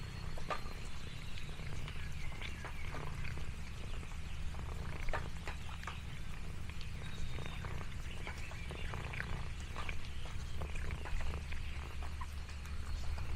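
Domestic cat purring steadily, a low continuous rumble, with many scattered small clicks and crackles over it.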